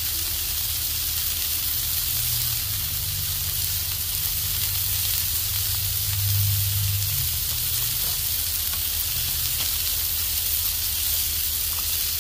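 Smash burger patties and butter-toasted buns sizzling on a hot flat-top gas griddle: a steady frying hiss. A low hum runs underneath and swells briefly about six seconds in.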